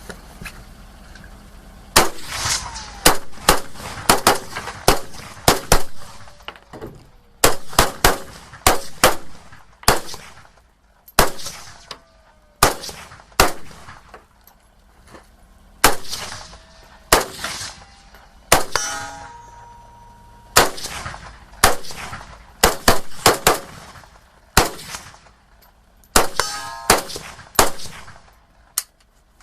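Kalashnikov KR-103 rifle in 7.62×39 firing dozens of shots in quick pairs and short strings, with pauses of a second or two between. Steel targets clang and ring after hits, most plainly just before and just after the middle.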